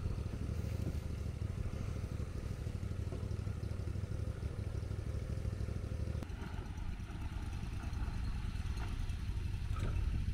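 Diesel engine of a John Deere 210G excavator running steadily, a low rumble. A faint steady tone over it stops about six seconds in.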